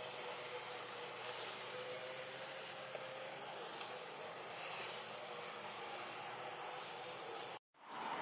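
Steady high-pitched insect drone, one unbroken tone over a general hiss of forest background; it cuts off sharply near the end.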